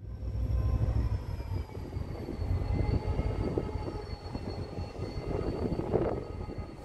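Irish Rail 071 class diesel locomotive, with its EMD V12 two-stroke engine, running as it approaches slowly along the track: a steady low engine rumble with a faint high whine that drops slightly in pitch, and a louder rattle about six seconds in.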